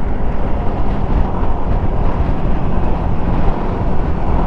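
Wind buffeting the microphone of a motorcycle at riding speed, a steady rush with engine and road noise underneath.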